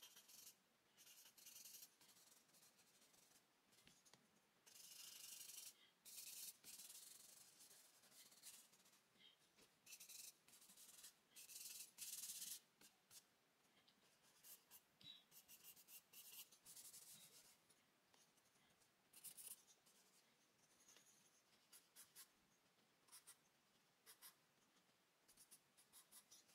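Faint scratching of a charcoal stick across drawing paper: irregular strokes, many short and quick, a few longer sweeps of about a second with the stick laid on its side for shading.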